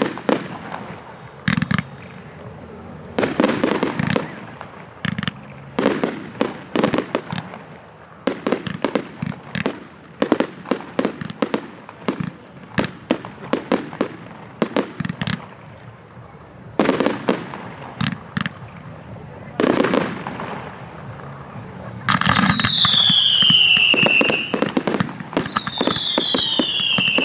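Firework display: a rapid, irregular run of bangs and crackles from shells bursting overhead. Near the end come two long whistles, each falling in pitch.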